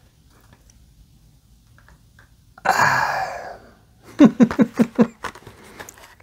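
A man lets out a loud breathy burst about two and a half seconds in, then laughs in a quick run of short pulses.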